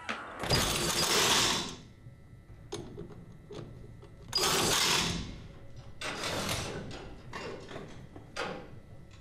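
Pneumatic impact wrench run in short bursts on a race car's wheel. There are two long bursts, one about half a second in and one about four seconds in, with shorter bursts and clicks and clanks of tools between them.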